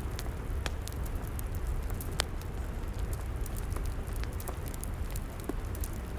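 Log fire crackling: irregular sharp pops and snaps, one louder pop about two seconds in, over a steady low rumble.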